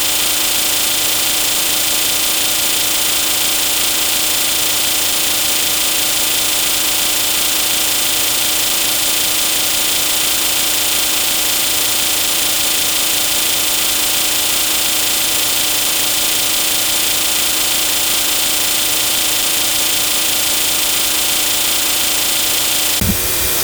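A steady, unchanging hum with a strong hiss, held without a break, giving way to a different sound near the end.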